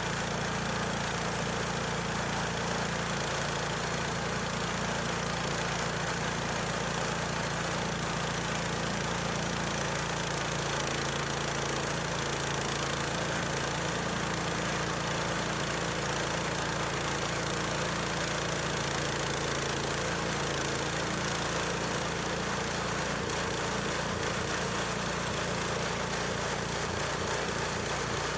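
Small gasoline engine of a portable band sawmill running steadily at an even speed.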